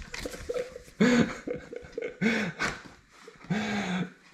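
A man chuckling and laughing under his breath in three short bouts, without words.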